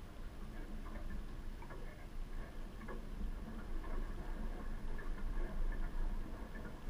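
Cat chewing chicken scraps: small, irregular crunching clicks, over a steady low rumble.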